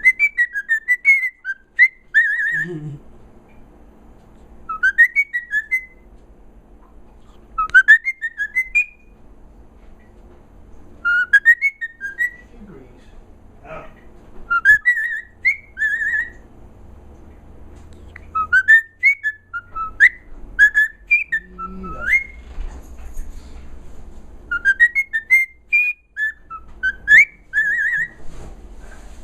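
Short, quick, warbling whistled phrases, repeated in bursts every few seconds.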